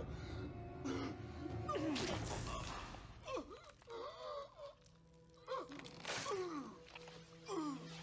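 A man choking and gurgling as he dies, with gasping groans that slide down in pitch, over low held background music.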